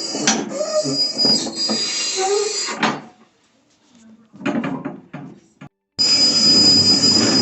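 Small hand cart carrying a toilet rolling along, its wheels rattling with a steady high squeal. It stops about three seconds in, a few light knocks follow, and the squealing rolling starts again about six seconds in.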